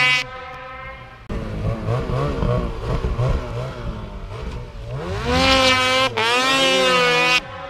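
Ski-Doo 800 two-stroke snowmobile engines revving in deep powder, the revs rising and falling repeatedly, then climbing steeply and holding high near the end. Abrupt jumps in level where edited shots are cut together.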